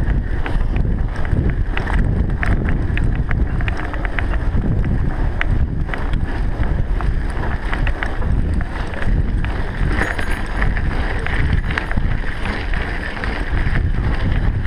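Wind buffeting a moving microphone, a loud, steady rumble with frequent small knocks and rattles throughout.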